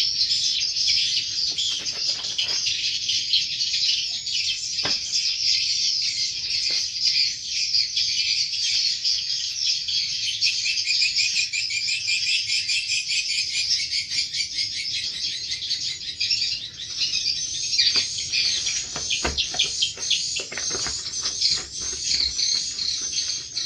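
Many edible-nest swiftlets twittering together in a dense, continuous high chirping. A few sharper clicks cut through near the end.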